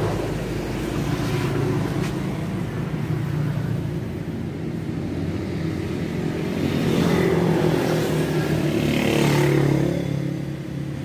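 Steady low engine hum, like a motor vehicle running nearby, swelling twice in the second half.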